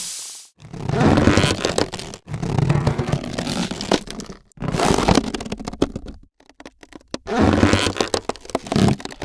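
Creaking wood: four separate drawn-out creaks, each one to two seconds long, with short gaps between them.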